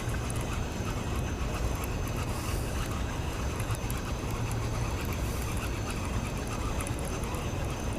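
Steady low rumble with a hiss over it, typical of storm wind buffeting the microphone outdoors.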